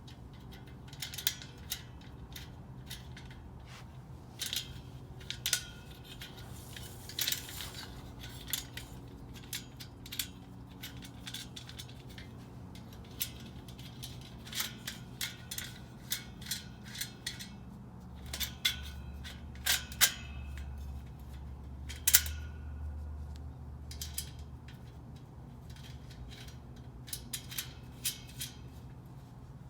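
Irregular clicks, taps and clinks of dish drying rack parts being handled and fitted together, over a steady low hum.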